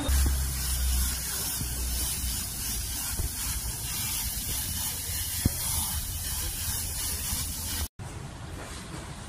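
A spray nozzle hissing steadily as it mists a black-painted steel car wheel and tyre. The hiss cuts off abruptly near the end, and a fainter hiss follows.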